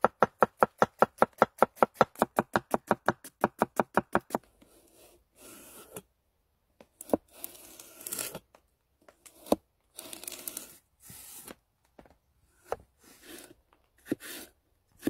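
A large knife chops cabbage fast on a wooden cutting board, about six even strokes a second, for the first four seconds or so. Then come slower single cuts as the knife slices a carrot into planks and sticks. Each cut is a longer slicing sound, some ending in a sharp knock on the board.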